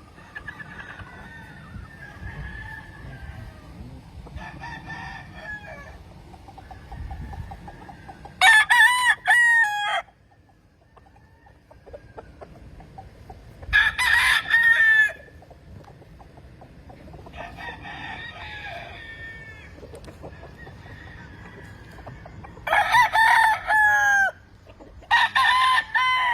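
Roosters crowing: four loud crows of a second or so each, the last two close together near the end, with fainter crowing from other roosters further off in between.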